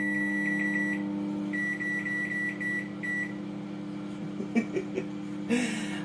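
Russell Hobbs RHFM2363 microwave oven running with a steady low hum while its start button is pressed rapidly over and over, each press adding 30 seconds of cooking time with a short high beep. The quick beeps run together for about the first three seconds, then only the hum goes on, with a few light clicks near the end.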